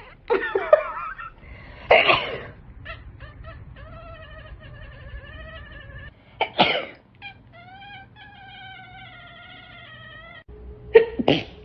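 People sneezing several times in short, loud bursts. Long, wavering, higher-pitched calls come between the sneezes.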